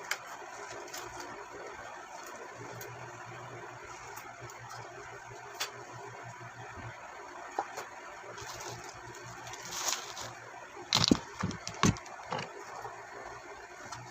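Ring light and its packaging being handled: scattered sharp clicks and crackles over a steady background hiss, with a louder run of rustling and knocks about ten to twelve seconds in.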